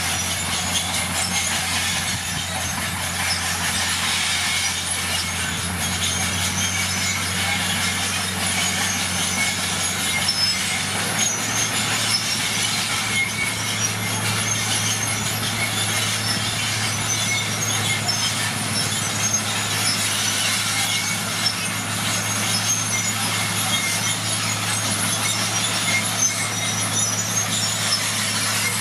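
Komatsu D41PX crawler bulldozer working: its diesel engine runs with a steady hum that steps up in pitch about eleven seconds in, under a constant high-pitched metallic clatter and squeal from the moving machine.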